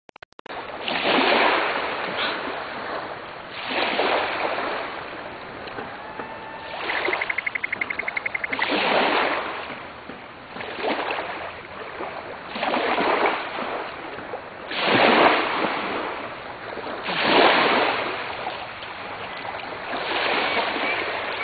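Small waves washing in on the shore, a rushing surge that swells and fades every two or three seconds.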